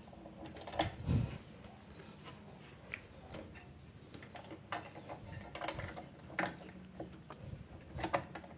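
Scattered small clicks and knocks of a CPU cooler being fitted onto its motherboard mounting bracket, with a louder knock about a second in.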